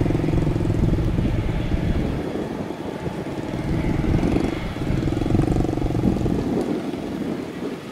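An engine running with a low, buzzing hum. It fades about two seconds in and swells again about halfway through.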